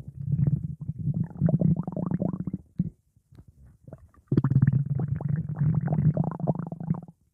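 Stomach growling: two long gurgling rumbles, each a rapid fluttering growl on a low steady pitch. The first lasts about two and a half seconds; after a short pause the second begins about four seconds in and runs nearly three seconds.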